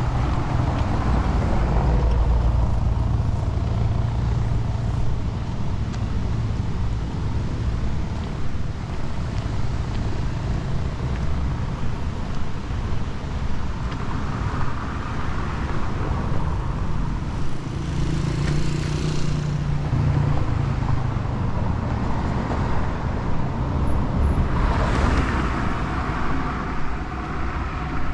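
City street traffic: vehicle engines running steadily close by, with vehicles passing twice, once around the middle and once near the end.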